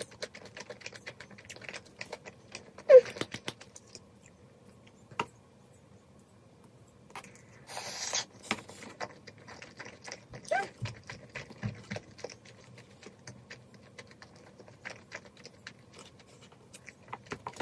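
Close-up eating sounds of jjajang instant noodles, dumplings and egg: chewing and smacking clicks with chopsticks tapping, a louder click about three seconds in and a short slurp around eight seconds.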